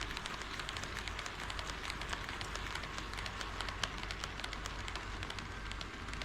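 HO scale model train running on KATO Unitrack: a steady rattle of wheels on track, full of rapid, irregular clicks.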